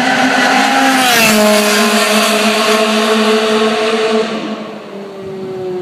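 Ferrari race car engine running at speed past the pit straight, its pitch dropping as it goes by about a second in, then holding a steady lower note and getting quieter after about four seconds.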